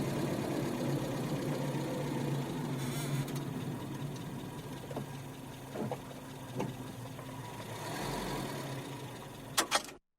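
Car engine idling steadily and slowly fading, with a few short knocks in the middle and two sharp clicks near the end before the sound cuts off.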